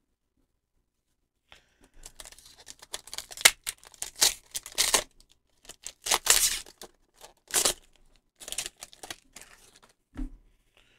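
Foil Pokémon booster pack wrapper being torn open and crinkled by hand: a run of sharp rips and rustles starting about a second and a half in, with a light thump near the end.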